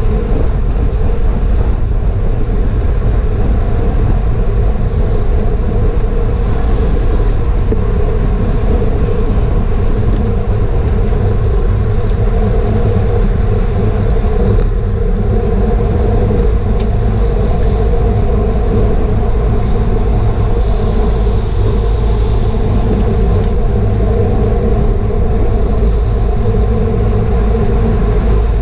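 Steady rumble of wind on a GoPro's microphone riding along on a racing bicycle at speed, with a constant hum of tyres on pavement underneath.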